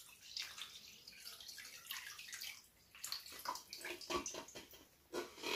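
Salt-and-spice brine poured from a stainless steel pot into a plastic tray of trout, splashing and trickling faintly and unevenly into the liquid already there.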